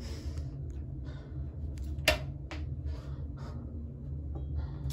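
A steady low room hum with a few light handling knocks and one sharp click about two seconds in. Near the end a hand works the bathroom sink's lever faucet and a rush of water starts.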